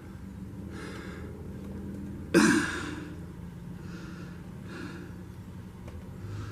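A person breathing close to the microphone, soft breaths about every second, with one loud sigh-like exhale about two and a half seconds in. A steady low hum runs underneath.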